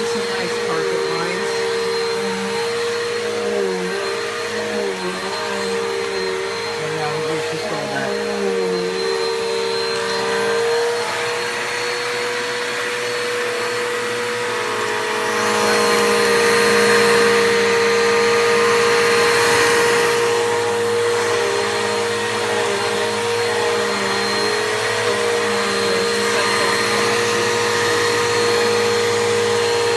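Bissell PowerForce Bagless upright vacuum running while being pushed over paper shreddings, a steady motor whine with wavering overtones. About halfway through it gets louder for several seconds, with a rushing hiss.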